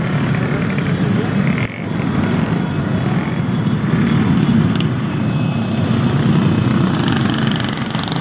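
Many motorcycle engines running together in a slow street convoy, a dense steady rumble, with people's voices mixed in.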